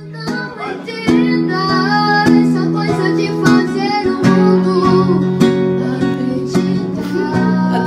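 A boy singing while strumming a nylon-string classical guitar, the voice entering about a second in over steady chords.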